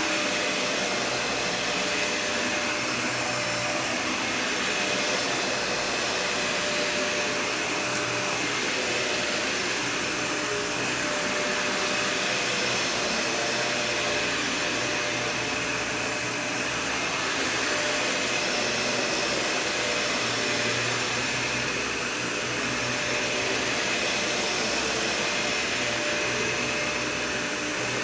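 Dyson Ball Total Clean (UP13) upright vacuum running steadily: a continuous rush of air with a thin high whine. The level swells and dips slightly every few seconds as it is pushed along.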